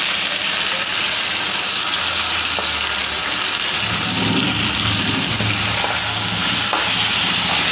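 Pieces of katla fish and spice paste sizzling steadily in hot oil in a kadhai, with a spatula stirring them near the end.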